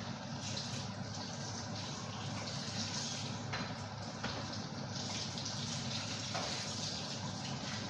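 Something cooking in a covered aluminium stock pot on the stove boils with a steady bubbling noise.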